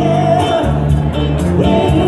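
Live dance band playing amplified music with a steady beat, bass and singing.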